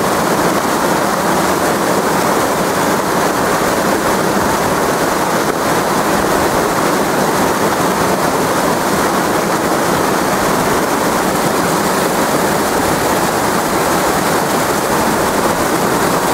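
Fast river rapids rushing over rocks, a loud, steady, unbroken wash of whitewater.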